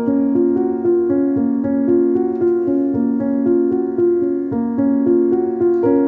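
Background piano music, a steady run of held notes that change about every half second.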